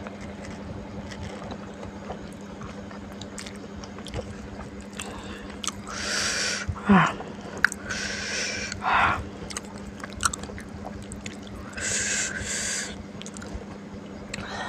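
Close-up eating sounds from a mukbang: chewing, with several breathy puffs and hisses of air through the mouth, typical of someone eating very spicy chilli food. About seven seconds in comes one short vocal 'hoo' that falls in pitch, the loudest sound here.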